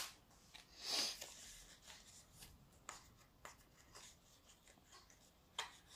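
Faint handling sounds from a roll of paper sticky labels as a label is peeled off it: a short rustle about a second in, then small ticks and rubbing.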